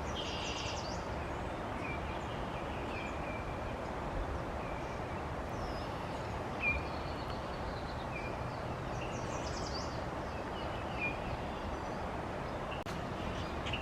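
Outdoor ambience: a steady background hiss with scattered faint bird chirps and a couple of short, rapid high trills.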